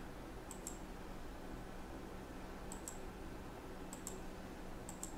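Computer mouse clicking quietly, the clicks coming in quick pairs about four times over a few seconds, over faint room hiss.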